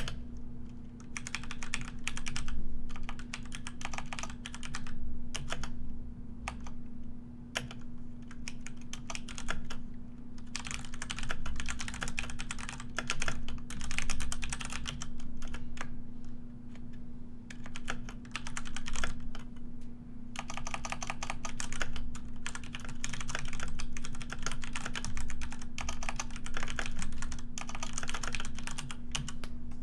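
Computer keyboard typing: rapid key clicks in runs of a few seconds, broken by short pauses, over a steady low hum.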